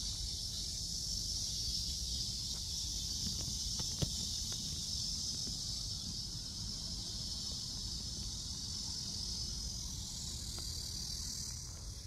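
Cicadas buzzing in a steady, high-pitched chorus, with a low rumble underneath and a single click about four seconds in.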